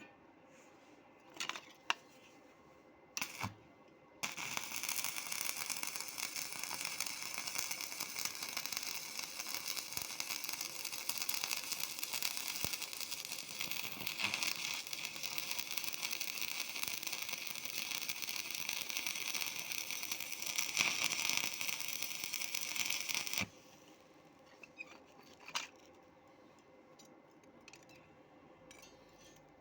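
Electric welding arc crackling and sizzling steadily for about nineteen seconds as a bead is run, then cutting off abruptly. A few sharp clicks and taps come before the arc starts and after it stops.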